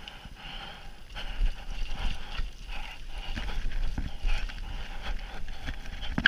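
Mountain bike riding down a rough dirt forest trail: tyres rolling over dirt and roots, with the bike rattling and knocking irregularly over the bumps.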